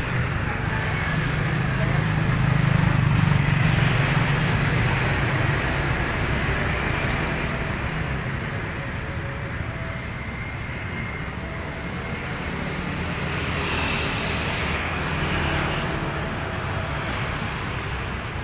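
Road traffic going by, with a motor vehicle's engine hum swelling over the first few seconds and fading, then a weaker pass later.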